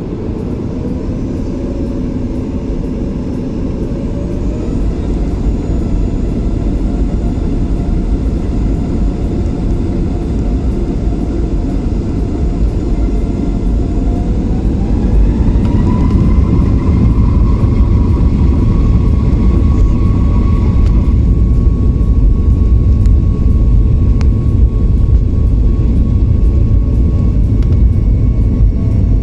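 Boeing 737 MAX 8's CFM LEAP-1B jet engines spooling up to takeoff thrust: a heavy rumble grows steadily louder while an engine whine rises in pitch over about twelve seconds and then holds steady, as the jet makes its takeoff roll.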